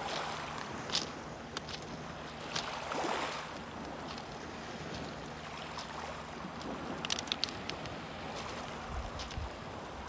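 Small lake waves lapping and washing on a rocky beach, swelling twice, with a few sharp clicks of stones, a cluster of them near the end.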